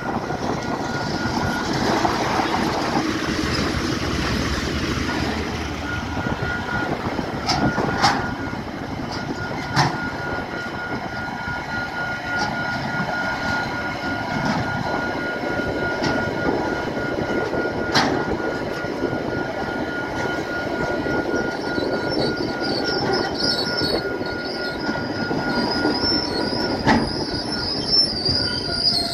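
Freight train passing over a level crossing: the two GE U26C diesel-electric locomotives go by first, then wagons rumble past with a few sharp clanks from the wheels. The crossing's warning bell rings steadily throughout, and a high wheel squeal rises in the last several seconds.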